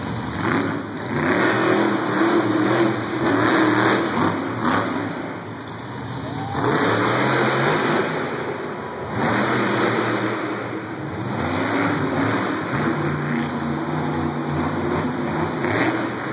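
Monster truck engines revving hard in repeated surges, the pitch rising and falling as the trucks accelerate and back off.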